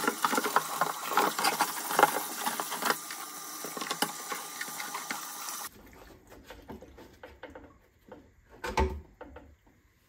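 Kitchen tap running onto a plastic washer-fluid reservoir in a ceramic sink, water splashing with small knocks of the bottle against the sink, until the water stops suddenly about six seconds in. Then scattered knocks and clunks of the plastic bottle being handled in the sink, the loudest near the end.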